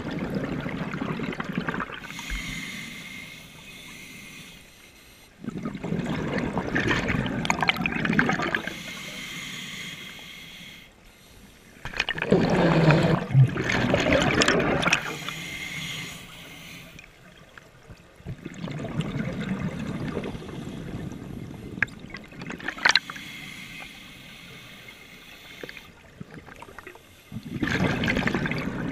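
Scuba diver breathing through a regulator underwater. There are four or five breaths, each a loud bubbling rush of exhaled bubbles about every six to seven seconds, with a softer hiss of inhalation between.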